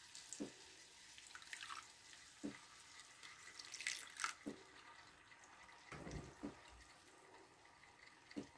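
Saffron water being poured from a glass jug into a clay tagine of onions and meat: a faint trickle and splash of liquid, with a few soft knocks.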